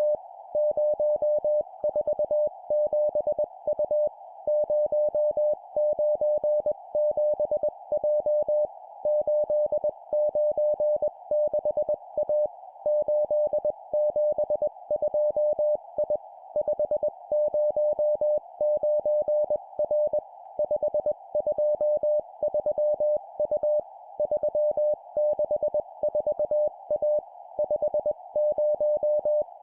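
Morse code (CW) tone sent at 20 words per minute: a single steady beep keyed into dots and dashes, in short four-character groups of three numbers and a letter, separated by brief pauses. A steady hiss runs underneath.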